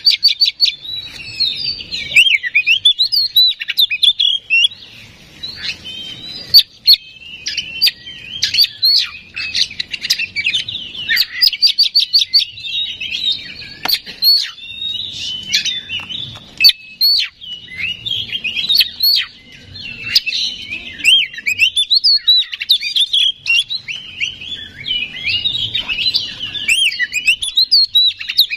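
Oriental magpie-robin (kacer) in loud, continuous song: a fast, ever-changing stream of sweet whistles, slurred notes and rapid chattering trills with hardly a pause.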